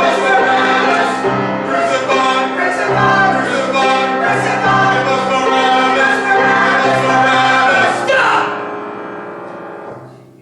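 Choir singing with piano accompaniment, holding sustained chords, then dying away from about eight seconds in.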